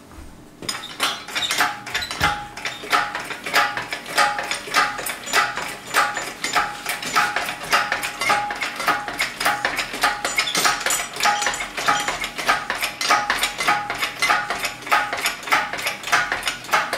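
Rapid, irregular metallic clinking and clanking from a hydraulic engine crane and its steel lifting chains as an engine is hoisted. It starts about half a second in and keeps up at several clinks a second, with a faint metallic ring.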